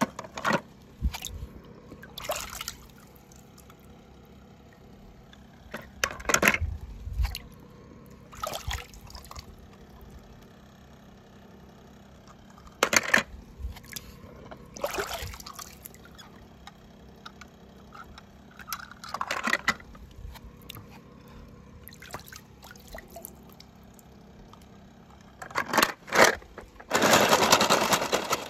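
Water splashing and trickling in a swimming pool as a hand reaches in and lifts out die-cast toy cars, in short bursts every few seconds, with a longer spell of splashing near the end.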